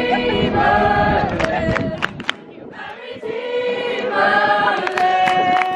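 A group of teenagers singing together in a choir, holding long sustained notes, with a few sharp clicks in between.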